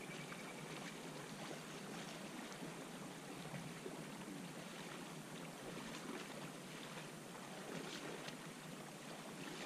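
Faint, steady outdoor ambience beside a calm river: a soft hiss of water and air, with a few faint ticks.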